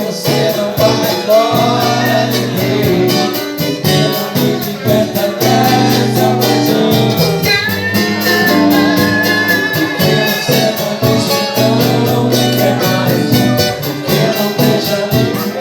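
Live band music: guitar and bass over a quick, steady percussion beat, with singing and a long held note about halfway through.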